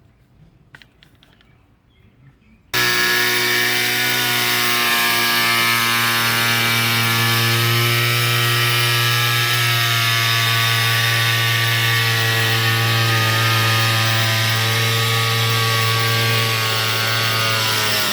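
Electric power tool switched on about three seconds in and run at a steady, unchanging speed with a loud motor whine and hiss, its pitch starting to fall away at the very end as it is let go to spin down.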